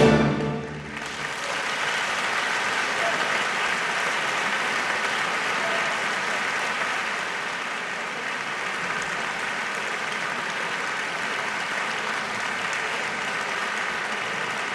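The orchestra's final chord breaks off right at the start, and after a moment a concert-hall audience applauds steadily.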